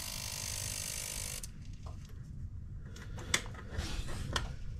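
Honda Rancher 420 with the ignition switched on and a dead fuel pump: a steady electrical hiss for about a second and a half that cuts off suddenly, then a few light clicks from the fuel injector and the fuel pump relay, with no pump whir. The silent pump is the reason the ATV cranks but will not start.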